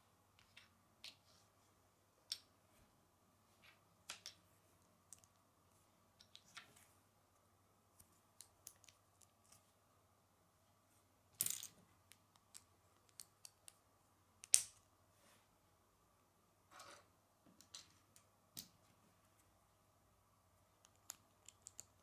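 Plastic Lego bricks clicking and snapping together in the hands, with pieces picked up from and set on a wooden tabletop: scattered, irregular sharp clicks, the two loudest about halfway through.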